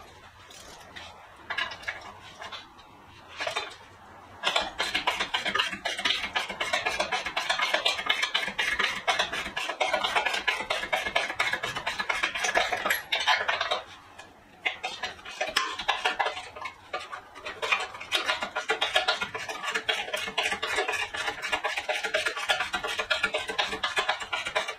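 Hand ratchet wrench clicking rapidly as it is worked back and forth on a socket extension, loosening the bumper mounting bolts. There are a few scattered clicks at first, then long continuous runs from about four seconds in, with a short break halfway.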